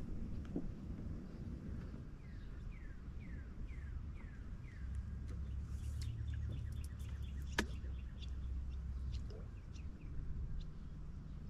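A bird singing: a run of about six falling whistled notes, then a quicker string of short notes, over a steady low hum. A single sharp click comes a little past halfway.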